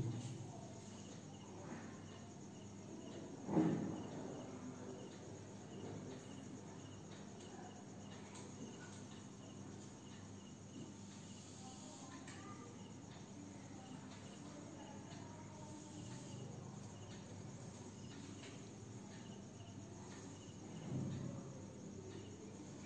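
Faint cricket chirping, a steady run of short, evenly spaced high chirps, with a brief low thump about three and a half seconds in and a softer one near the end.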